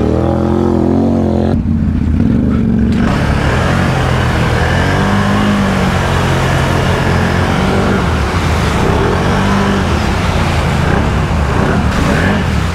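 ATV engine revving under load as the quad churns through a deep mud hole, with mud and water spraying and splashing off the tyres from about three seconds in.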